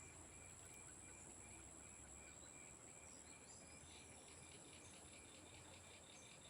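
Faint swamp chorus of crickets and other insects: a steady high trill with an even chirp about twice a second. About four seconds in, a faster pulsing call of about five a second joins, with a few short chirps just before it.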